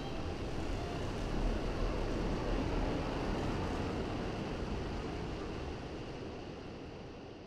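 A giant ocean wave breaking, heard as a deep, steady rushing noise. It builds over the first couple of seconds, then fades out slowly toward the end.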